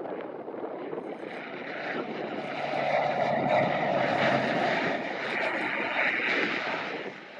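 Pilatus PC-12NG's single PT6A turboprop engine and propeller during the landing rollout just after touchdown, a steady engine and propeller noise that swells about two seconds in as the aircraft rolls past and falls away near the end.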